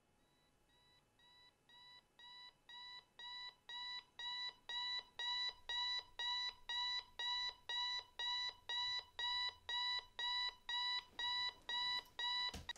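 Bedside electronic alarm clock beeping, about two beeps a second, starting faint and growing louder over the first few seconds, then steady. Near the end the beeping stops abruptly with a knock as it is switched off.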